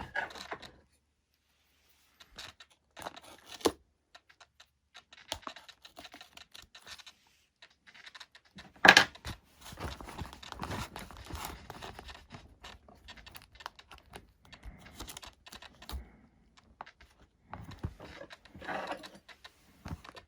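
Irregular small clicks, scratches and tearing rustles from a knife cutting tape while the tape is handled, with one sharp knock about nine seconds in.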